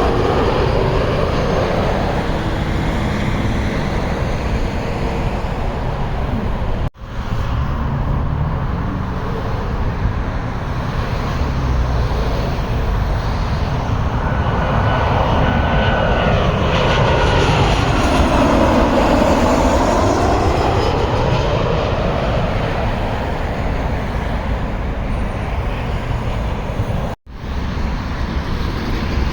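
Jet airliner engines on landing approach, a steady loud rumble with a sweeping tone that slides down and back up as the plane passes over. The sound breaks off abruptly for an instant about seven seconds in and again near the end.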